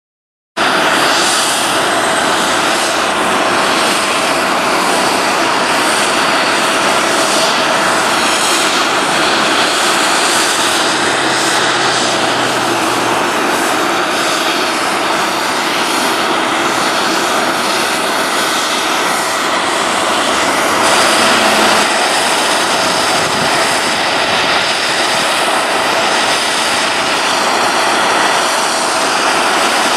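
Jet airliner engines running: a loud, steady rushing noise with a constant whine through it.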